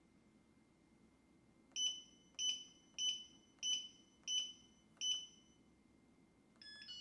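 Yale Real Living push-button deadbolt beeping six times, evenly about two-thirds of a second apart, as a user PIN code is programmed into it. Near the end comes a brief, quick run of stepped tones.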